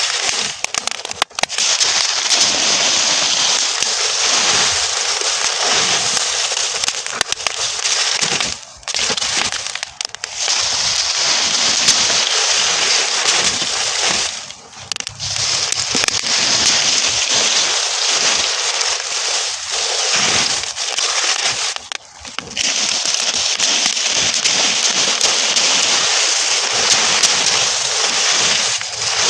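Burning straw crackling densely and steadily, a fast stream of small pops, dipping briefly in loudness a few times.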